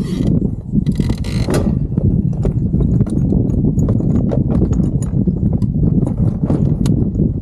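Small waves slapping irregularly against a plastic fishing kayak's hull, over a steady low rumble of wind on the microphone, with a brief hiss about a second in.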